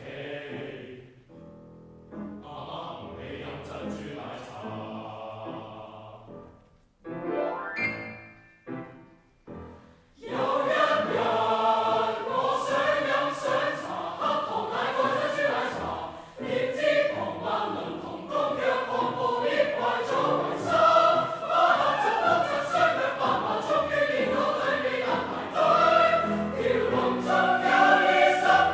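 A choir singing a Cantonese song: soft and sparse at first, with short separate phrases, then the full choir comes in louder about ten seconds in.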